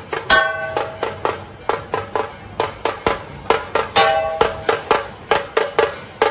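Music with quick, sharp drum strokes, about three or four a second. A held melodic note rings out now and then, once just after the start and again about four seconds in.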